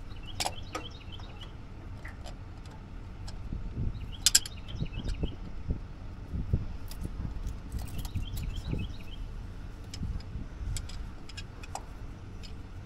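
Scattered metallic clinks and light knocks of hand tools working the hose clamps and heater hoses loose at an engine's water pump, the sharpest a few seconds in.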